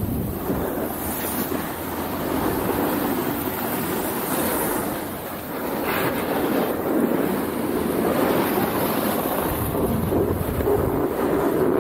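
Wind rushing over the camera microphone and a snowboard sliding and scraping over snow during a run: a steady, loud, noisy rush that eases briefly near the middle and then picks up again.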